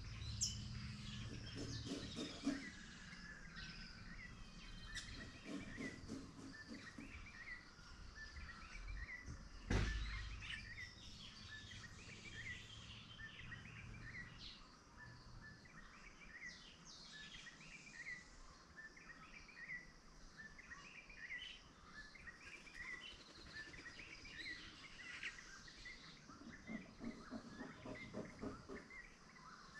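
Many small birds chirping and twittering at once, short calls overlapping throughout. A single sharp knock about ten seconds in, and a low rumble underneath that fades out about halfway.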